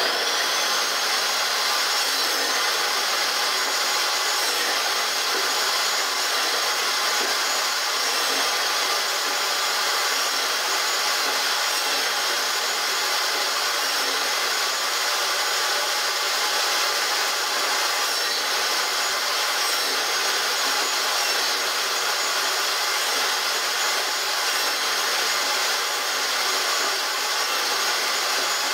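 Table saw's motor and blade running steadily at speed, a constant whirr with no cut loading it.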